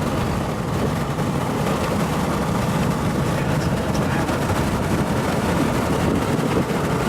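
Car driving, heard from inside the cabin: a steady rumble of road and engine noise.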